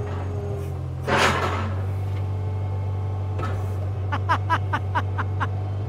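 Skid steer engine running steadily while the machine is used as a lift. There is a short rush of noise about a second in, and a quick run of about six short squeaky clicks near the end.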